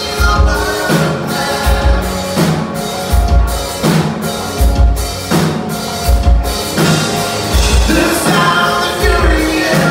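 Live rock band playing loud through a club PA: electric guitars, bass guitar and a drum kit with a steady kick-drum beat, with a male voice singing over it.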